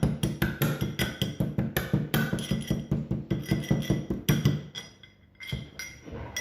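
Pestle pounding whole cloves in a mortar: rapid, even strikes with a ringing tone, about five a second, grinding the cloves to powder. The pounding stops near the end, leaving a few separate knocks.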